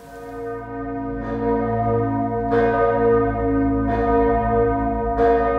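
Church bell ringing, fading in at the start, then struck again about every second and a half while the earlier strokes keep ringing.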